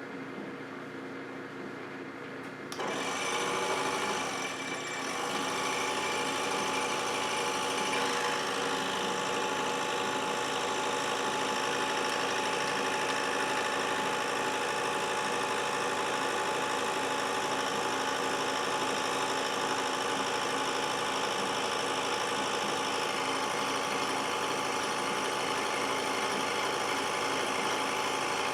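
Scroll saw running steadily and cutting wood, growing louder about three seconds in.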